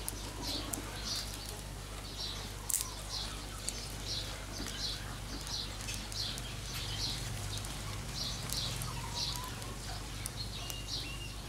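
A small bird chirping over and over, short high notes about twice a second, over a steady low hum, with a few sharp clicks.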